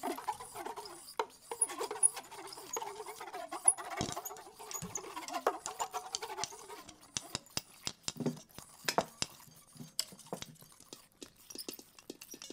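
Found objects played in a free improvisation: a wavering, squeaky pitched sound that bends up and down, mixed with small clicks, for the first several seconds. After that come only scattered small clicks and taps.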